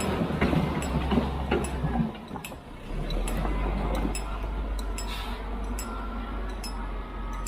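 Heavy construction machinery working: an engine's steady low drone under frequent sharp metallic clinks and knocks. The sound changes abruptly about two seconds in.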